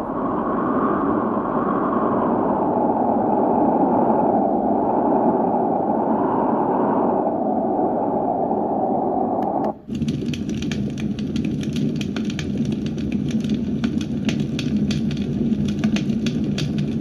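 Douni white noise machine playing a deep, muffled noise with slow gentle swells; just before ten seconds in it switches to another track, a dense crackling over a low rumble.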